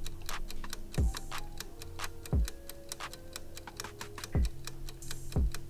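Clock ticking sound effect with rapid, even ticks, over quiet background music with steady held notes and an occasional low, falling drum thump.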